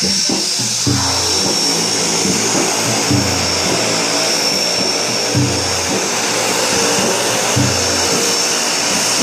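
Steady whining rush of a de Havilland Canada DHC-6 Twin Otter floatplane's twin turboprop engines taxiing on the water, with background music that has a low note repeating about every two seconds.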